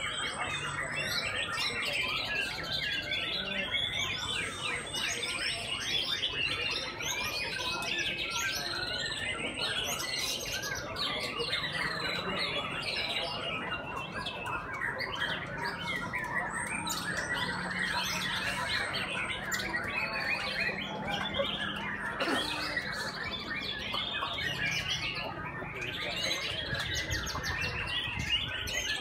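Many white-rumped shamas (murai batu) singing at once from hanging cages: a dense, unbroken chorus of varied whistles and chirps.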